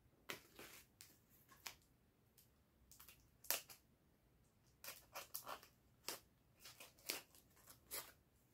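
Faint rustling and scraping of a cardboard mailer being handled and cut open with scissors: a scattered series of short scratchy strokes, the clearest about three and a half seconds in.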